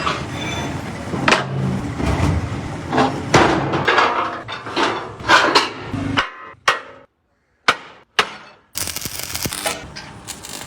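Irregular hammer blows and clanks of tools during truck brake repair work, with a sudden break to silence about seven seconds in before the knocking resumes.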